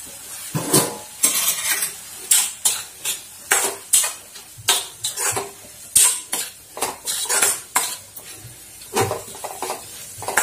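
Metal spatula scraping and knocking against a kadai as chopped green beans are stirred: irregular strokes about two a second, with a short pause near the end.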